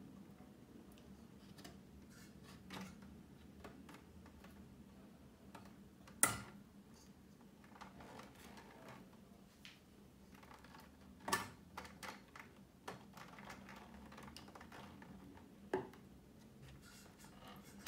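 Wire cutters snipping through speaker cables, with three sharp snaps about six, eleven and sixteen seconds in, and light clicks and rustling from handling the wires between them.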